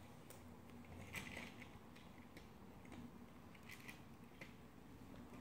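Near silence with a few faint clicks and taps of plastic LEGO pieces being handled on a table.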